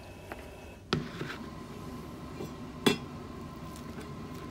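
Kitchen utensils knocking: a light tap of a knife on a wooden cutting board near the start, then two sharp clinks about two seconds apart, the second the loudest.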